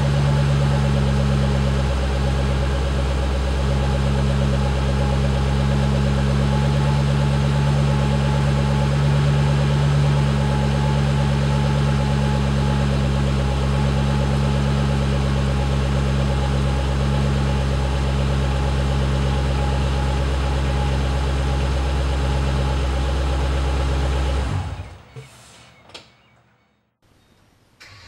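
2008 Shelby GT500's supercharged 5.4-litre V8 idling steadily with a low, even note through a 3-inch Bassani cat-back exhaust. The sound cuts off about 24 seconds in.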